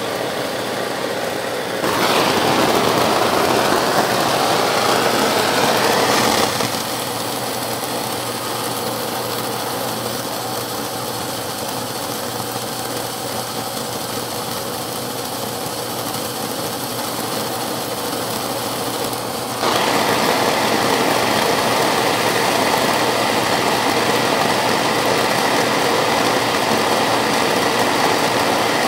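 Metal lathe running steadily with a drive shaft turning in its chuck during heat straightening. Twice a louder rushing noise rises over it: about two seconds in for some four seconds, and again from about twenty seconds on.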